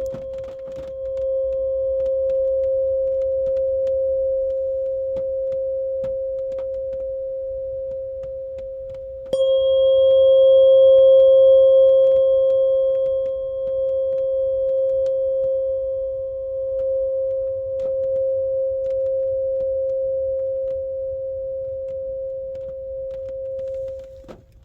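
528 Hz tuning fork ringing with a pure steady hum. About nine seconds in it is struck again with a small click: the tone jumps louder, with a higher overtone that fades away over the next few seconds, and the hum then slowly dies down before stopping near the end.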